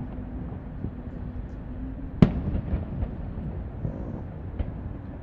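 Fireworks display: one sharp, loud shell burst about two seconds in, followed by a few smaller scattered pops over a steady low background rumble.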